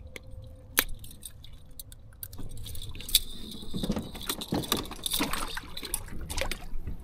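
Metal clips of a fish stringer clinking and rattling as crappie are handled on it, with scattered sharp clicks that come thicker in the second half.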